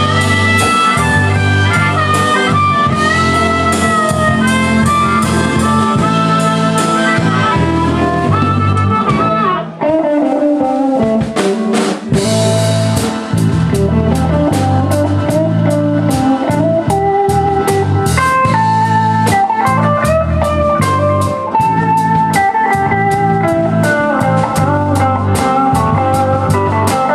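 Live blues band playing an instrumental break with drums and bass. A wavering harmonica lead plays first; after a short dip about ten seconds in, a Stratocaster-style electric guitar takes over with a solo.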